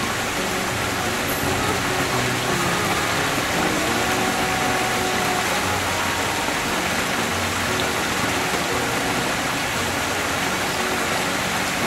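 Water pouring from a boulder waterfall into a swimming pool, a steady splashing rush.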